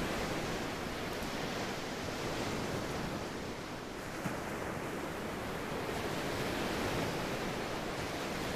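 Steady wash of ocean waves and surf.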